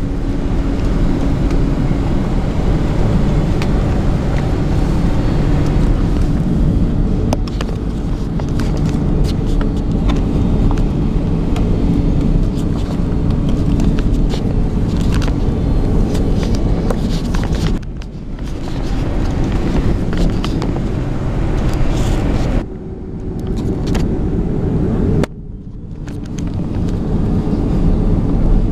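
Loud, steady rumble and roar inside the passenger cabin of a Boeing 767 during its gear-up emergency landing, with a low hum under it and knocks from the handheld camera. The sound cuts off abruptly three times in the second half.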